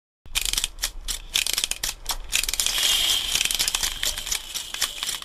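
Dense, irregular plastic rattling and clicking with crinkling, starting suddenly a moment in: an orange fish-shaped plastic pencil case being pulled open.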